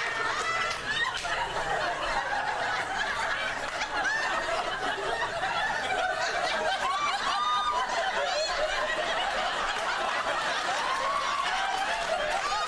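Studio audience laughing, many voices at once, sustained at a steady level.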